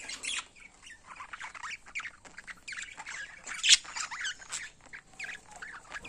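Yellow budgerigars chattering: a quick, irregular string of short chirps and squawks, loudest about three and a half seconds in, from a courting pair touching beaks.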